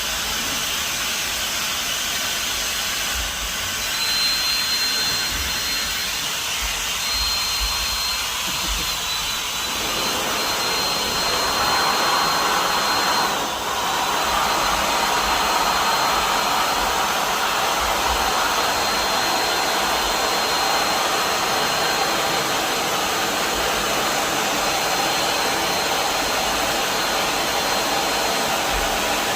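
Electric air blower running steadily as it inflates a giant balloon, a rushing of air with a thin high whine that sets in about four seconds in and falters briefly near the middle.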